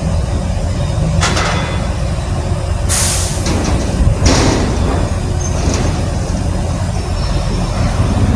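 Steady low engine rumble with several short hisses, the loudest about three seconds in.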